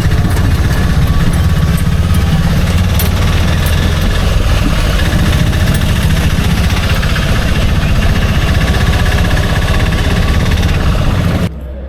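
Engine of a shared auto-rickshaw tempo running steadily while riding, heard from inside, loud, with a strong low drone. It cuts off suddenly near the end.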